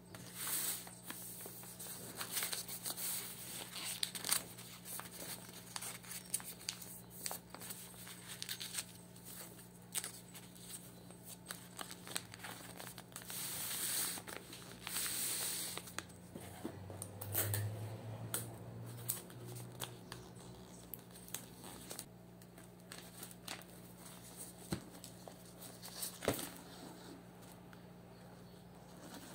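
Wrapping paper rustling, crinkling and being creased by hand as a box is folded into gift wrap, with small irregular taps and scrapes on the table. A faint steady low hum runs underneath.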